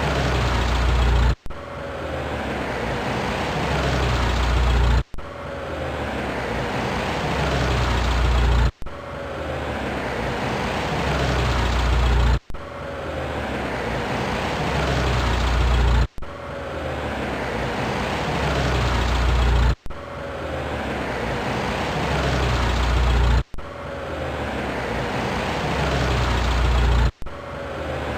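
A car engine running, in a short clip played over and over: each pass grows steadily louder for about three and a half seconds, then cuts off abruptly and starts again, about eight times.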